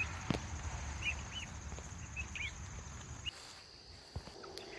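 A few short, scattered peeps from young chicks and ducklings, over a low rumble that drops away about three quarters of the way through. A single click comes early on.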